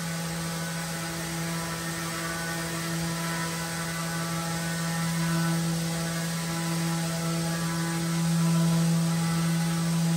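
Electric random orbital sander with a dust-extraction hose running on a hardwood slab: a steady motor hum with higher overtones, swelling louder about halfway through and again near the end.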